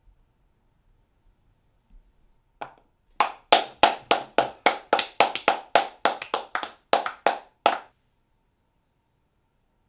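Hand claps, a quick run of about eighteen sharp claps at three or four a second in an uneven rhythm. They start about three seconds in after one lone clap, and stop about eight seconds in.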